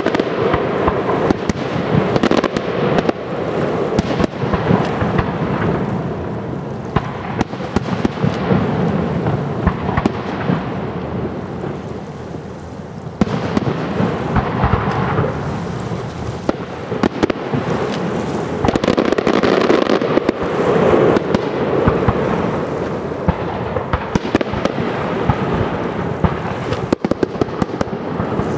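Aerial firework shells bursting in rapid succession: a dense run of bangs over a continuous rumble. It thins briefly about twelve seconds in, then thickens again with a flurry of sharp cracks near the end.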